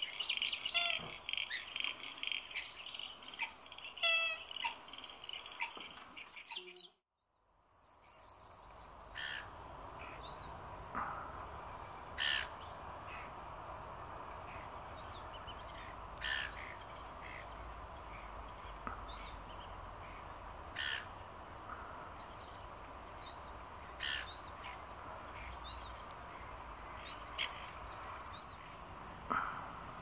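Wetland bird calls: a dense, rapidly pulsing rattle chorus for the first six seconds or so, then, after a short break, sharp single calls every three to four seconds over faint repeated chirps and a steady low hum.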